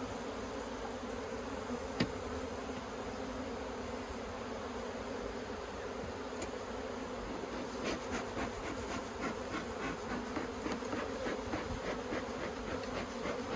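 Honeybee colony buzzing steadily around an open hive. One sharp knock comes about two seconds in, and from about eight seconds on there are many light clicks and knocks as the hive box and frames are put back together.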